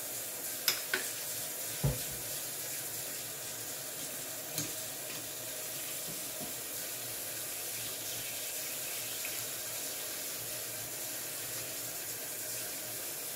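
Tap water running steadily into a sink, with a few light knocks and clicks in the first few seconds as something is handled in it.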